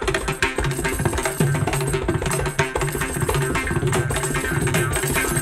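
Instrumental percussion passage in a Carnatic-style Indian film song: fast, dense hand-drum strokes in the manner of tabla or mridangam, over a low steady drone, with no singing.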